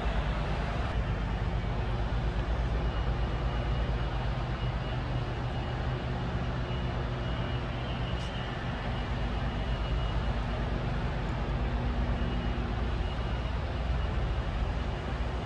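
Steady low rumble and hum of building machinery in a large factory hall, with a faint high whine from about three to nine seconds in.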